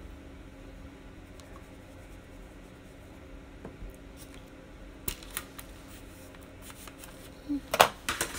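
Handling noise: a few short clicks and knocks as makeup things and the phone are picked up and moved, starting about five seconds in and loudest near the end, over a faint steady hum.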